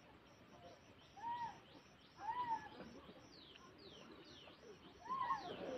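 Birds calling: three short arched calls, a few quick high whistles that fall in pitch, and a steady high-pitched pip repeating about three times a second.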